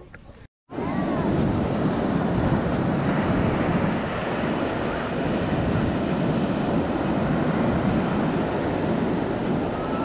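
Ocean surf breaking with wind blowing on the microphone, a steady loud rush that cuts in abruptly after a moment of silence about a second in.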